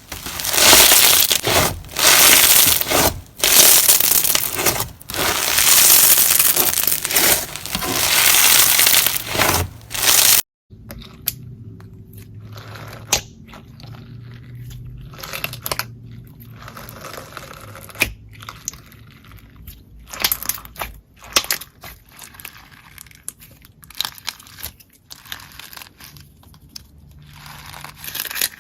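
Slime being squeezed and pressed by hand: loud, dense strokes of noise, about one a second. About ten seconds in it cuts off abruptly to a softer slime being worked, quieter, with scattered small clicks and pops.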